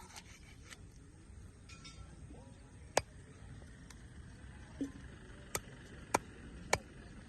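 A few sharp, separate knocks over a low steady background: one about three seconds in, then three more close together near the end.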